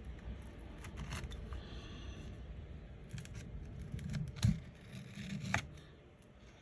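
Small scrapes and clicks of a cracked iPhone 13 Pro screen being pried up from its frame, its adhesive softened by heat, with two louder clicks in the second half.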